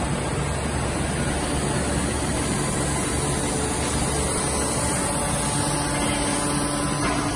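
Automatic case-packing machine running, its conveyor belts and drives giving a steady mechanical noise with a low hum.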